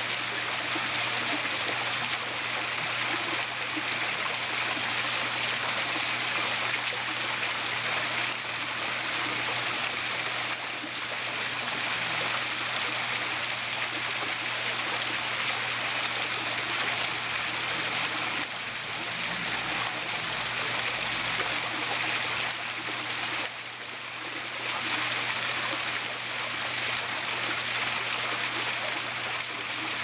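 Small waterfall cascading down rock ledges, water splashing steadily, with a brief dip in level about 23 seconds in.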